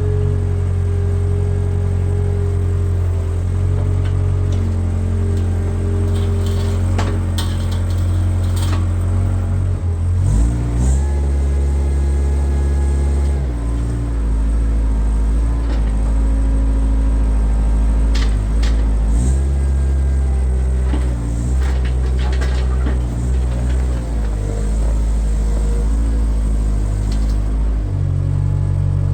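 Background music with deep held bass chords that change in steps every few seconds, with a few light clicks over it.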